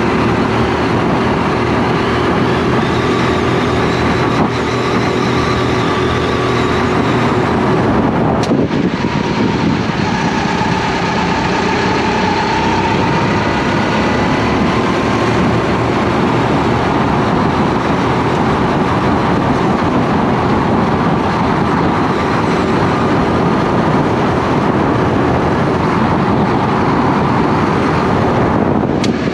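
Racing kart engine running hard, heard from onboard the kart, its revs rising and falling through the corners. About eight seconds in the revs drop sharply, then climb again.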